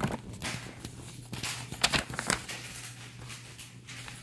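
Paper pages of a paperback book being flipped by hand, a series of dry rustles and flicks with the sharpest ones about two seconds in.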